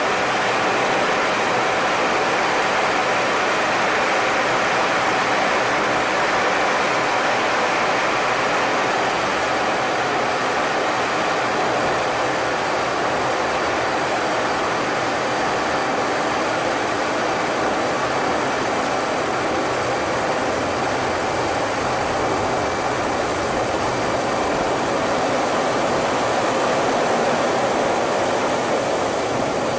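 Steady rushing noise inside an F/A-18 Hornet fighter's cockpit in flight: air rushing past the canopy mixed with the drone of the jet's two turbofan engines. A faint high whine holds steady throughout.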